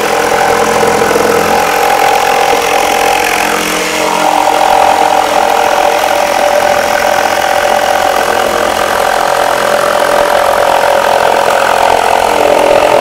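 Mafell P1CC jigsaw's 900 W universal motor running as the blade cuts a corner off a board at a 45-degree bevel: a loud, steady motor note whose pitch steps up a little about four seconds in.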